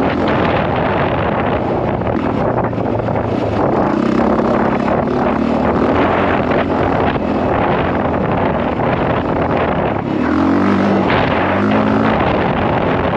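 Honda CRF450R's single-cylinder four-stroke engine running under way at speed, mixed with heavy wind rushing over the camera microphone. The engine note shifts about four seconds in and again about ten seconds in.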